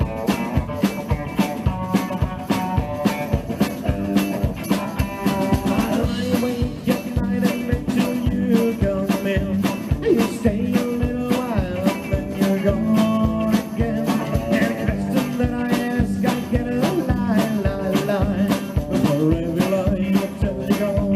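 Live rock 'n' roll band playing: electric guitars, slapped-style upright double bass and a drum kit keeping a fast steady beat, with a tambourine jingling along.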